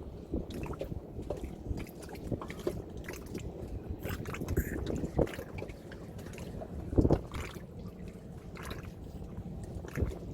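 Water splashing and dripping on a small inflatable fishing boat, with scattered light knocks and clicks and one louder thump about seven seconds in.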